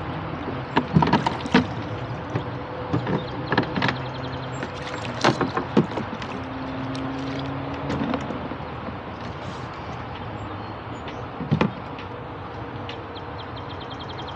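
Oars knocking in the oarlocks of a rowboat as it is rowed up to a dock: sharp knocks in pairs on the first few strokes, about two seconds apart, then a lone knock near the end. Under them is a steady rush of background noise.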